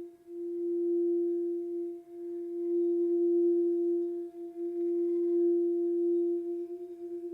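Quartz crystal singing bowl sounding one sustained pure tone, with a fainter overtone an octave above it. The tone swells and dips every couple of seconds and wobbles briefly near the end.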